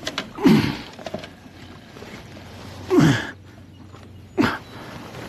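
A man's wordless straining exclamations: three short, loud grunts, each falling in pitch, about half a second in, at about three seconds and near four and a half seconds. Under them is a steady low background noise.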